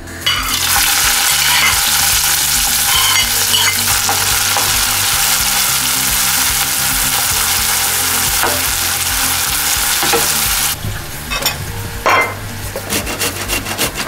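Chopped red onion sizzling as it fries in a pan while being stirred with a spatula. The sizzle cuts off abruptly about eleven seconds in. Near the end, a tomato is rubbed on a metal box grater in quick repeated strokes.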